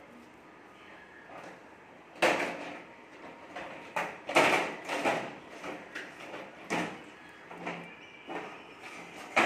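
Plastic ride-on toy car knocking and scraping on a tiled floor as it is handled and dragged: a string of irregular clattering knocks, the loudest about two seconds in and around four and a half seconds in.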